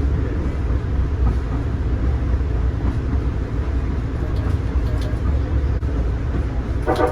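Steady low rumble of a Nippon Sharyo P865 light rail car running on the track.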